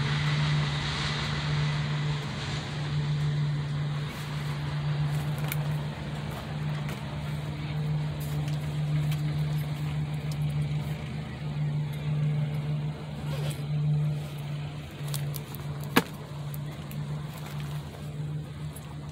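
A steady low engine hum holding one pitch, with a single sharp click about sixteen seconds in.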